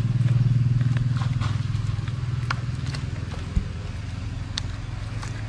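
An engine running nearby with a steady low hum that slowly fades from about two seconds in, over scattered light ticks and scrapes of a paintbrush working cement slurry onto a mould; one soft thump a little past the middle.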